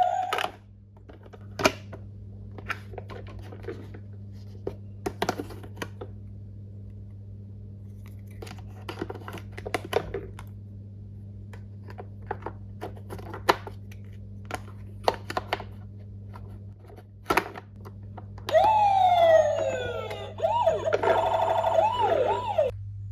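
Scattered clicks and rustles from toy vehicles being unboxed and handled, over a steady low hum. About 18 seconds in, a toy emergency vehicle's electronic siren sounds for about four seconds: falling wails, then a fast up-and-down yelp, cut off suddenly.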